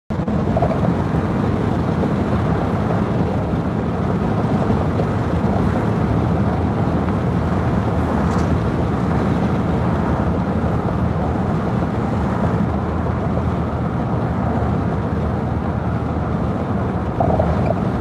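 Steady road and engine noise inside a vehicle's cabin while driving.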